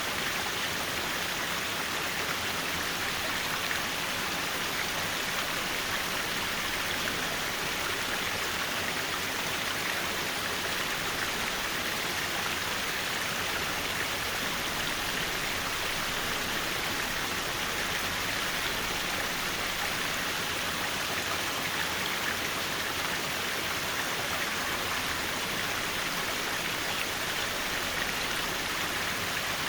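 Mountain stream water rushing and splashing over rocks in a steady, unbroken flow.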